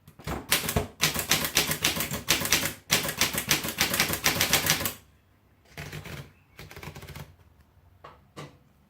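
Underwood standard four-bank manual typewriter being typed on: a fast, steady run of type-bar strikes for about five seconds, then a few shorter, quieter bursts of keystrokes and two single strikes near the end.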